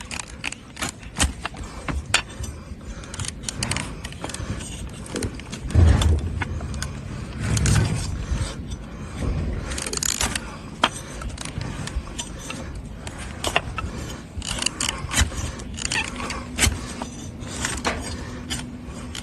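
A hoof knife cutting and scraping the overgrown, very hard and dry hoof of a donkey, as a string of irregular crisp clicks and scrapes. A few dull thumps come about six and eight seconds in.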